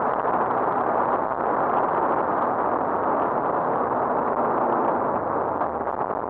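Rally car at speed, heard from inside the cabin: engine, tyre and wind noise blended into one loud, steady rush.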